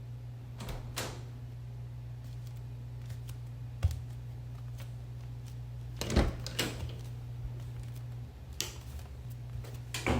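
Scattered clicks and knocks, like objects being handled, over a steady low hum that stops about eight seconds in.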